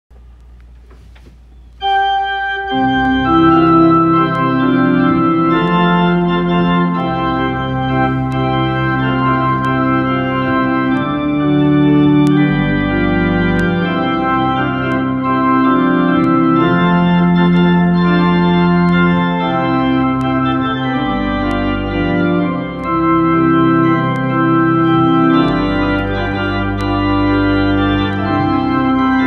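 Two-manual home electronic organ playing a hymn in sustained, slowly changing chords over low bass notes, starting about two seconds in.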